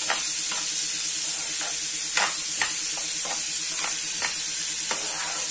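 Chopped onions sizzling in hot oil in a nonstick frying pan, with a steady hiss. A metal slotted spoon stirring them scrapes and taps on the pan about ten times, at irregular moments.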